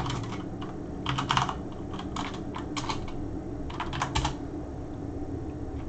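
Typing on a computer keyboard in short flurries: a quick run of keystrokes about a second in, a few more around two to three seconds, and another run near four seconds, over a steady low hum.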